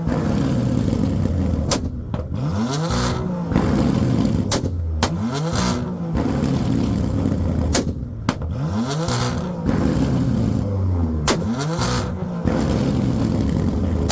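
A Chevrolet Corvette and a BMW M4 revving in turn in a rev battle, the engines blipped again and again, each rev rising and falling in pitch, with sharp exhaust pops cracking between the revs.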